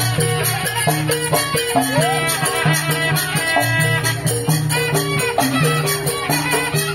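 Madurese traditional ensemble music (gending Madura) playing continuously: a wind-instrument melody with sliding notes over drums and a repeating low line.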